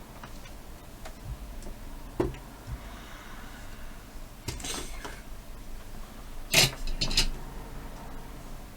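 Small tools being handled on a workbench during desoldering: a few light taps, a brief scrape about halfway through, then a couple of sharp clicks close together near the end.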